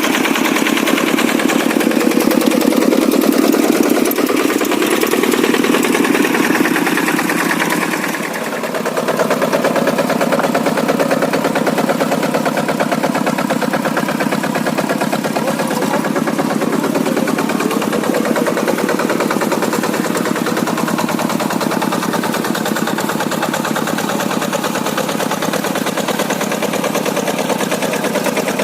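Kubota single-cylinder diesel engine of a Quick G100 hand tractor running steadily, a fast even chugging, while the tractor works hard soil. About eight seconds in, the level dips briefly and the note drops, then the engine settles back to a steady run.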